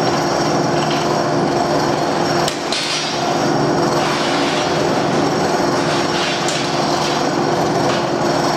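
Rebar-processing press machine running with a steady motor hum, broken by a few sharp metallic knocks, two of them close together about two and a half seconds in.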